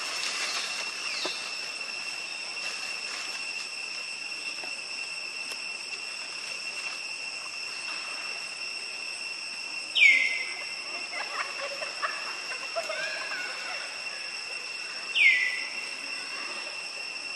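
Steady high-pitched insect drone with two tones. Twice, about five seconds apart, a short loud call drops sharply in pitch, with fainter small sounds between the two calls.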